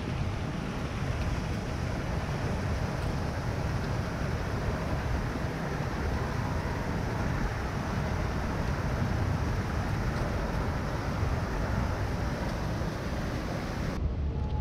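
Steady street noise: low traffic rumble mixed with wind buffeting the microphone. The higher hiss cuts off abruptly near the end.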